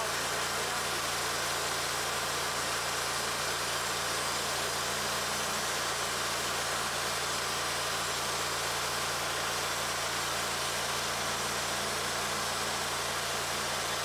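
Timber King 1620 portable bandsaw mill cutting through a log: its engine runs steadily under load as the band blade saws along the length of the log.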